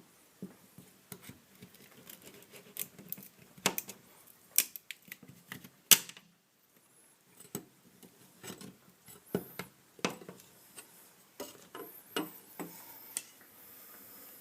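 Irregular clicks, taps and light scraping of a putty knife and pry tool working a painted wood glazing stop loose from a door frame, with one sharp louder click about six seconds in.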